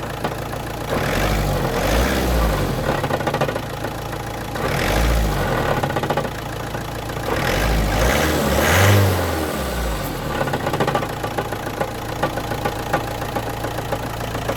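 Car engine blipped up and down several times, then settling back to idle with short sharp knocks. The knocking is put down to the dual-mass flywheel.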